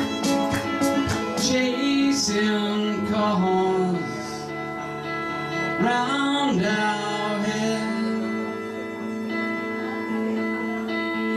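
Live band music: a violin playing a sliding melody over strummed guitar, settling into long held notes about eight seconds in.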